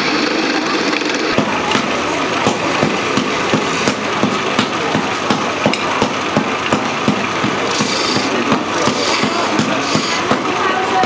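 Wood lathe running as a hand chisel cuts grooves into a spinning wooden umbrella part: a steady machine noise with a regular knock about three times a second.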